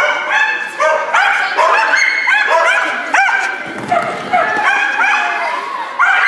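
A dog barking over and over while running an agility course, about two sharp, high barks a second, with a brief low rumble about four seconds in.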